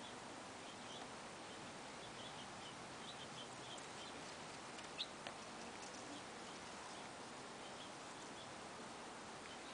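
Faint outdoor ambience: steady hiss with scattered short, high chirps from distant small birds, and a sharp click about halfway through.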